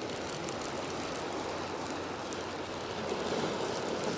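Steady wash of small waves on a pebble beach, swelling slightly about three seconds in, with faint scattered ticks of stones.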